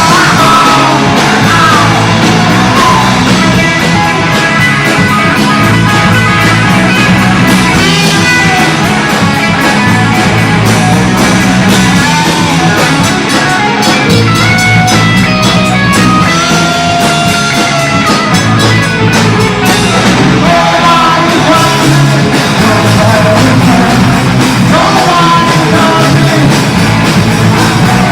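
Punk rock band demo recording: a full band playing with a singer.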